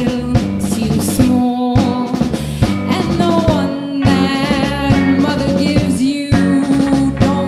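Live rock band playing: a woman singing lead over electric guitars, bass guitar and a drum kit, with steady drum hits.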